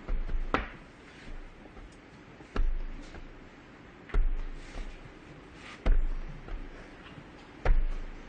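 Five sharp knocks on a tabletop, evenly spaced about every one and three-quarter seconds, each with a dull low thud and a brief ringing tail.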